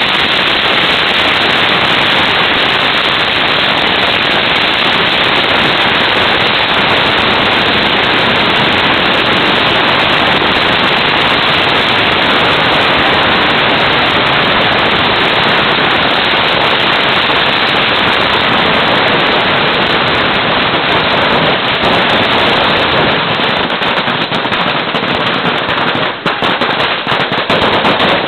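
Firecrackers going off in a loud, dense barrage, the bangs so rapid they merge into one continuous crackle. Over the last few seconds it thins out into separate bangs.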